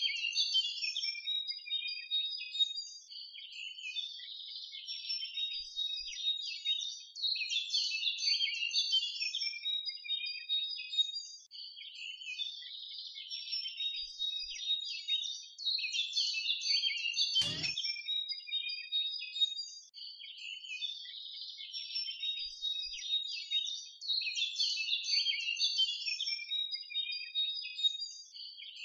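Many small birds chirping and twittering continuously, all high-pitched, with a single sharp click a little past the middle.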